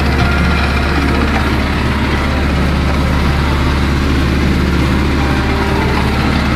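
Tractor diesel engine running steadily, heard from inside the cab, while it pulls a disc harrow through grain stubble.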